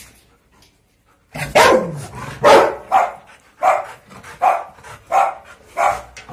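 Rottweiler barking repeatedly at close range, starting about a second in, with six or seven deep barks at a steady pace of about one every three quarters of a second.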